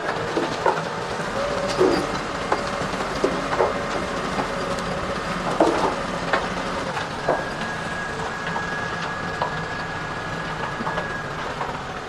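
5.5 m³ self-loading concrete mixer working its loading bucket: engine running with hydraulic whine, and scattered metallic clanks and knocks as the bucket arm lifts. A higher steady whine comes in a little past halfway and stops shortly before the end.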